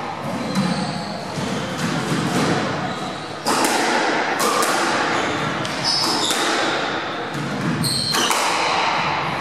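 Squash rally: the ball cracks off the rackets and smacks against the court walls about once a second, echoing in the enclosed court, with short high squeaks of sneakers on the wooden floor.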